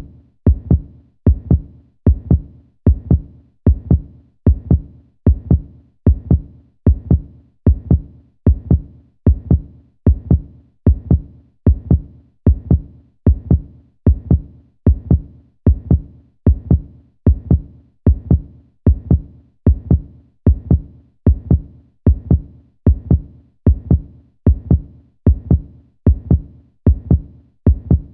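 Heartbeat, a slow, steady lub-dub: each beat is a pair of deep thumps, repeating evenly.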